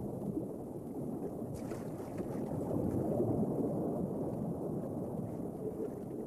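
Muffled underwater water sound: a low, steady rush of moving water with faint gurgling.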